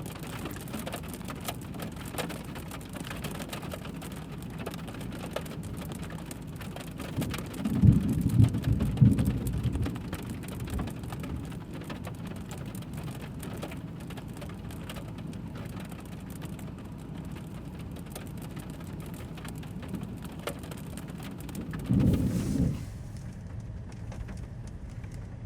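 Steady patter of rain on a surface, a dense crackle of fine drop ticks, with rumbles of thunder: a louder, uneven one about eight seconds in lasting a couple of seconds, and a shorter one about twenty-two seconds in. The patter thins out near the end.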